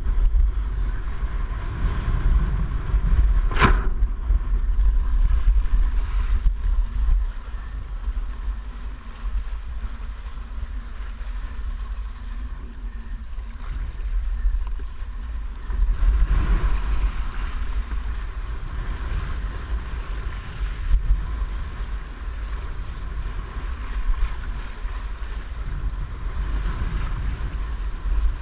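Wind buffeting the microphone of a windsurfer's boom-mounted camera, with water rushing and splashing along the board as it planes. A single sharp click about four seconds in.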